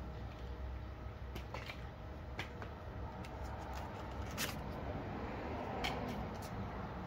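Handling noises around a flight case standing on cardboard: a few scattered light taps and rustles, the sharpest about four and a half seconds in, over a steady low background rumble.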